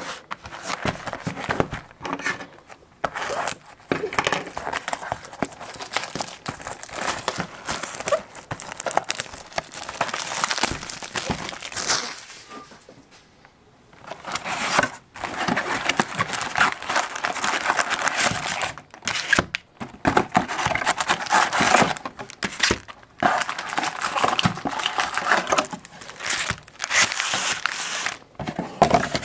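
Crinkling and tearing of packaging as a sealed cardboard trading-card box is unwrapped and opened and its foil card packs are pulled out and handled. The rustling stops for about two seconds midway.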